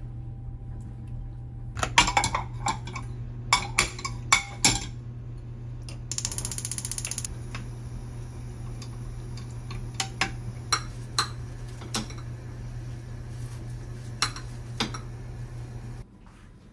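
Kitchen clatter: clinks and knocks of cookware and utensils, food handled on a metal tray and a wooden spatula working a frying pan, over a steady low hum, with a brief hiss about six seconds in.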